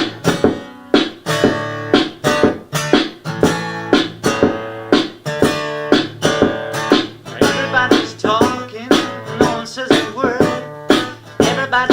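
Guitar-led music: strummed guitar chords on a steady beat of about two strokes a second over a sustained low note, with a wavering higher line coming in about eight seconds in.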